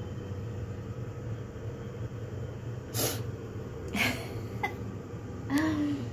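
A mother cat and her kittens: two short, sudden breathy sounds about three and four seconds in, then a brief meow near the end, over a steady low hum.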